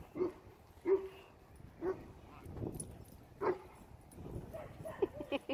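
Dog barking during rough play: four single barks spaced about a second apart, then a quick run of shorter, higher yips near the end.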